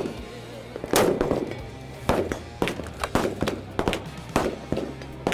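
Rifle gunshots on a busy firing line: a string of sharp cracks every half second to a second, the loudest about a second in, over a low background music bed.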